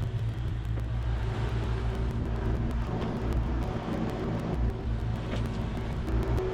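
Kubota KX040 mini excavator's diesel engine running steadily, with a few light clicks over the top.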